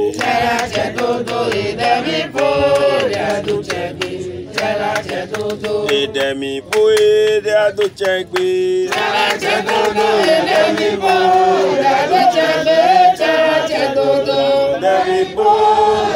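A group of voices chanting a ritual song, with sharp clicks or knocks scattered through it.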